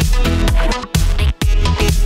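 Electronic dance music with a steady beat and deep bass.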